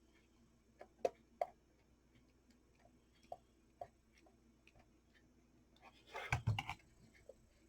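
Scattered light clicks and taps from handling small craft pieces during hot-glue work, at uneven intervals rather than a steady tick. About six seconds in there is a short cluster of louder knocks and rustling.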